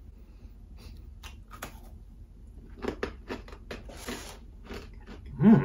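Close-up crunching and chewing of a mouthful of hard, twice-baked mini banana bread biscotti, heard as scattered crisp crackles. There is a brief rustle about four seconds in, and a short hummed "mm" from the eater near the end.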